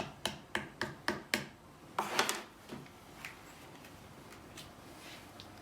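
Strawberries being spooned and tipped into a pastry-lined pie dish: a quick run of about six light clicks and knocks, then a louder scraping rustle about two seconds in, then only faint handling.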